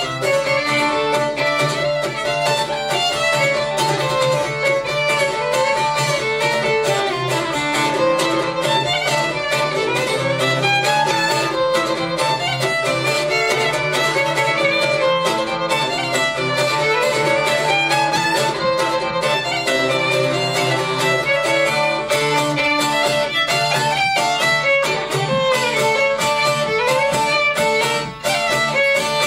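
Fiddle playing a polka tune over a plucked bouzouki accompaniment, in an acoustic live performance.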